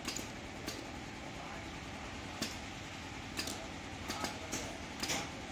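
Automated switch assembly machine running: a steady hum with short, sharp clicks at irregular intervals from its pneumatic cylinders and grippers moving and seating parts, several in quick succession near the end.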